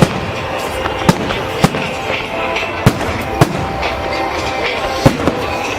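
New Year fireworks: about seven sharp bangs at irregular intervals, over a steady rumble and crackle of more distant fireworks.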